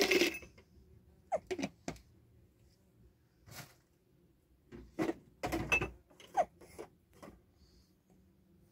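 A thermos flask and a small tea glass being handled on a tray: a string of short knocks and clinks, the loudest right at the start and a cluster about five seconds in.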